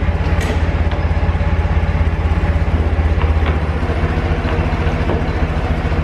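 Forklift engine idling steadily, with a couple of light clinks about half a second and about three seconds in.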